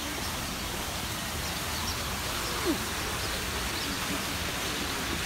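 Steady splashing hiss of a fountain's falling water, with faint bird chirps and one short falling note a little past halfway.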